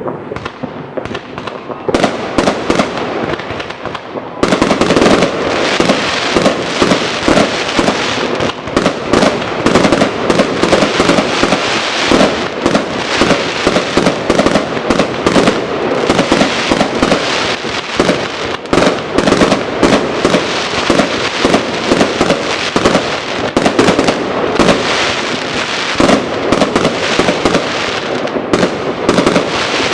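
New Year's fireworks going off in a dense, continuous barrage of rapid bangs and crackling. It grows much louder and thicker about four seconds in.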